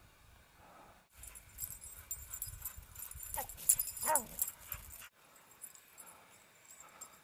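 A dog gives two short whining cries that fall steeply in pitch, a little past the middle. They sit over a crackling, crunching noise that starts and stops abruptly.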